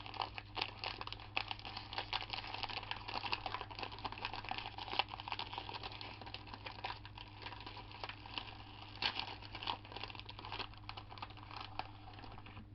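Plastic snack packaging crinkling and crackling as it is handled and opened, a dense run of small crackles, over a steady low hum.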